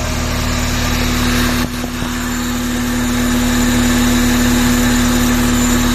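Honda Civic four-cylinder engine idling steadily at a raised cold idle, above 800 rpm, because it has not yet reached normal operating temperature. The electric radiator fan is still off.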